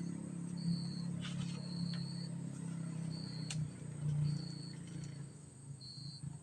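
Insects, likely crickets, chirping in short high trills about half a second long, repeated every second or so, over a steady low hum.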